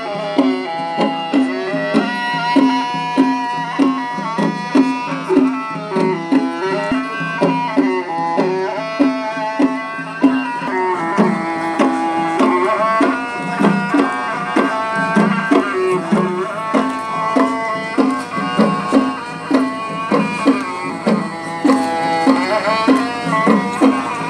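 Traditional folk dance music: a steady hand-drum beat, about one and a half strokes a second, under a bending melodic line.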